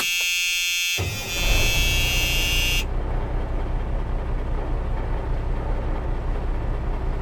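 A loud buzzing, horn-like tone for about three seconds. About a second in, a steady low engine rumble starts under it and keeps going after the tone cuts off.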